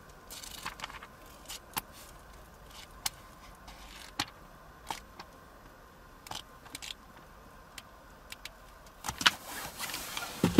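Pages of a thick paperback owner's manual being turned one after another, short papery rustles and flicks every second or so. Near the end the book is shut and set down, a louder flurry of paper and handling noise.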